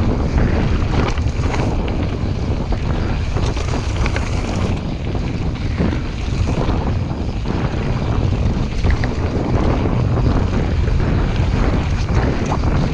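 Wind buffeting the microphone during a fast mountain-bike descent, over the rumble of knobbly tyres on a dirt trail, with scattered clicks and rattles from the full-suspension YT Jeffsy bike over stones and roots.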